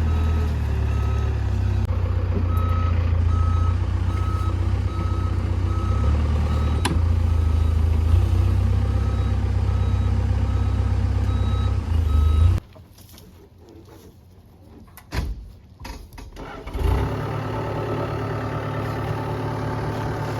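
Heavy machine's diesel engine running with its back-up alarm beeping steadily, a little under two beeps a second. After about 12 seconds this cuts off abruptly to a quieter stretch with a few knocks, and an engine is heard running again near the end.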